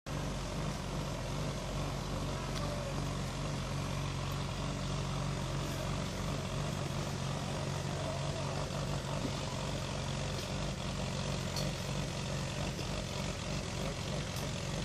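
Engine idling at a steady pitch: an even, low drone that holds without revving.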